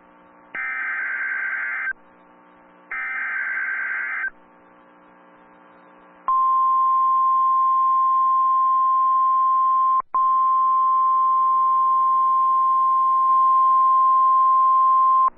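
Emergency Alert System SAME header: two screeching bursts of data tones, each about a second and a half long, then the NOAA Weather Radio 1050 Hz warning alarm tone, one steady high beep lasting about nine seconds that drops out for an instant near the middle. Together they mark the start of a severe thunderstorm warning broadcast.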